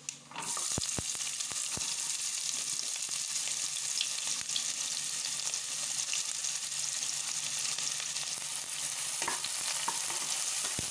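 Chopped red onions frying in hot oil with whole spices in a pressure cooker: a steady sizzle that starts suddenly about half a second in as the onions go into the oil. A wooden spatula stirs them, with a few knocks against the pot in the first two seconds.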